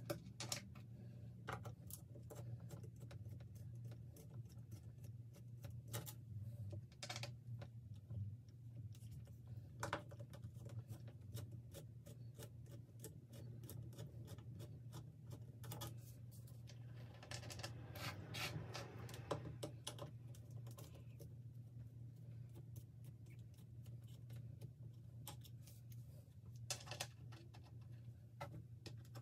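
Scattered small clicks and taps of a screwdriver working the set screws of amp control knobs and the plastic knobs being set down on a wooden bench, over a steady low hum.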